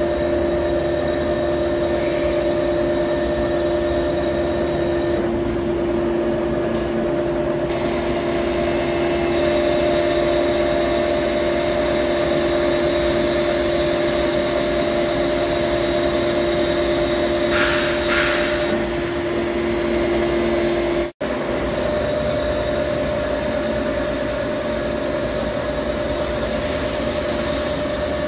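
Hankook PROTEC-9NC CNC lathe running, a steady machine hum with two held tones. A higher hiss joins from about nine to eighteen seconds in. About 21 seconds in the sound drops out for an instant, and afterwards the lower tone is gone.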